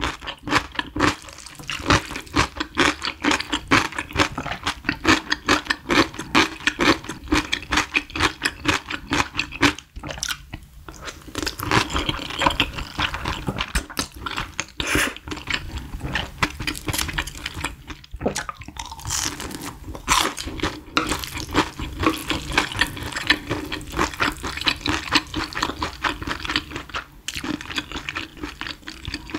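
Close-miked wet slurping and chewing of thick, saucy cheese Buldak fire-chicken noodles: a dense, continuous run of sticky smacks and clicks.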